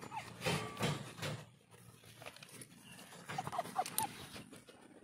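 Several short, high animal squeaks, a quick cluster of them about three and a half seconds in, with noisy rustles through the first second or so.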